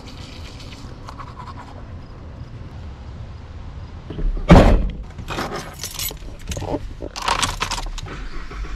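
A heavy thunk about halfway through, then rustling and jangling keys as a key is put into a pickup truck's ignition.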